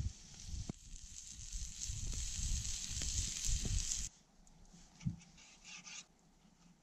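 Campfire hissing with a few sharp crackles, over low rumbles. About four seconds in it cuts to a knife working on a wooden board: short scraping cuts and one knock.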